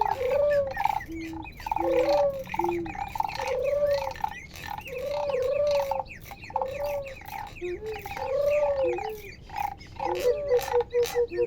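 Handmade sound objects played together, giving animal-like calls: short arching hoots about once a second, a pulsing higher tone under them, and faint chirps. Near the end a fast fluttering tone sets in.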